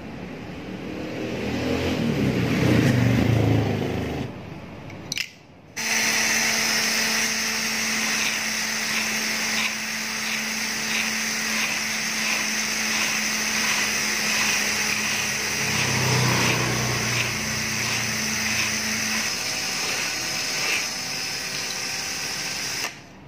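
Electric drill spinning a rivet's steel pin while a file is held against it to taper it into a carburettor needle: a steady motor whine with a rasping edge, starting about six seconds in and stopping just before the end. Before it comes a low rumble and a click.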